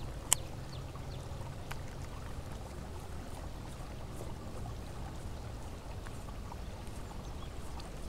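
Steady low water noise of river water around a kayak, with a sharp click about a third of a second in and a fainter click near two seconds.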